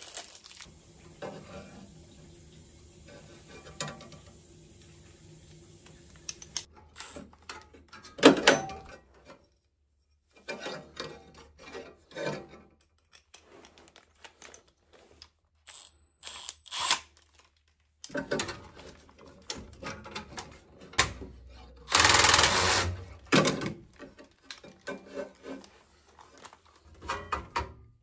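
Hands working inside a gas furnace cabinet to fit a new hot surface ignitor: scattered clicks, taps and rubbing of metal parts and wiring, with louder clatters about eight seconds in and again past twenty seconds.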